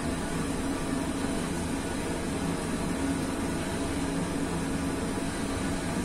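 Five-bell ring tuned in E-flat (Pruneri bells of 1892 and 1900, one Ottolina bell of 1951), swung by rope and sounding together as a dense, continuous wash of overlapping bell tones with no gaps.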